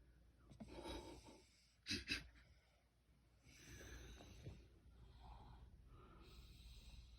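A sleeping baby breathing faintly through the nose, with a short double snort about two seconds in and soft noisy breaths after it, between snores.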